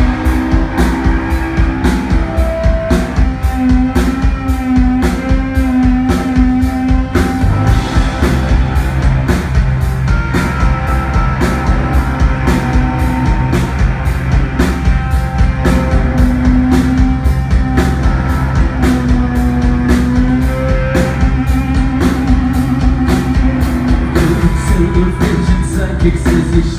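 Live rock band playing an instrumental passage: electric and acoustic guitars over bass guitar and a drum kit keeping a steady beat. The low end thickens about eight seconds in.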